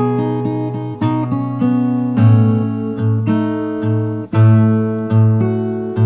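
Background music: an acoustic guitar playing plucked notes and chords, a fresh note or chord struck about once a second and left to ring.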